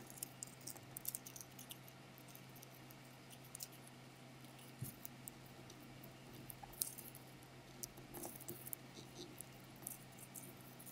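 Faint rustling and crinkling of small origami paper pieces being folded and pressed by hands, with many short scattered paper clicks, over a faint steady low hum.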